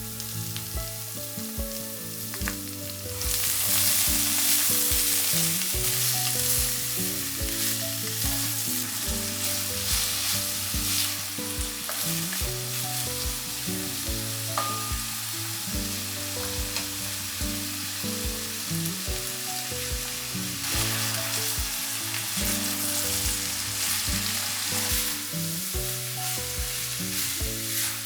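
Food frying in hot oil: a dense, crackling sizzle that swells about three seconds in, with stirring. Soft background music with slow sustained notes plays underneath.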